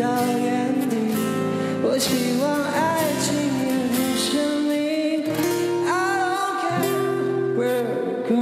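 A male singer singing a slow pop song to acoustic guitar, with steady backing chords underneath. The vocal line enters about two seconds in and comes back near six seconds.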